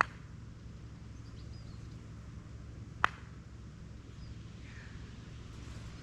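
Quiet outdoor ambience: a steady low rumble with a few faint bird chirps, broken by two sharp clicks, one right at the start and one about three seconds in.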